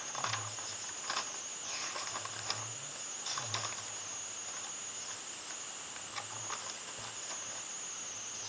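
Steady high-pitched drone of crickets, with a few faint rustles in the first few seconds as a sheet of paper is handled and a pen is brought to it.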